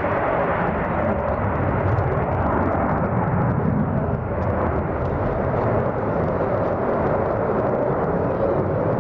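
Twin General Electric F404 turbofan engines of two F/A-18 Hornet jets running on the ground as the jets hold on the runway before takeoff: a steady, unbroken rushing jet noise.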